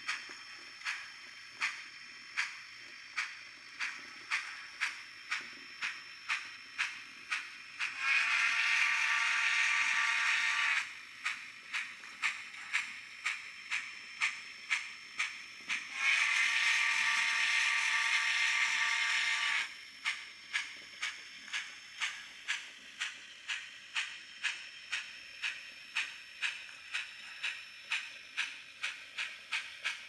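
Model steam locomotive sound decoder on a Bachmann Spectrum 4-8-2 Mountain, playing steady steam exhaust chuffs about two a second as the engine runs. Two long whistle blasts sound over the chuffing, one about a third of the way in and one past the middle.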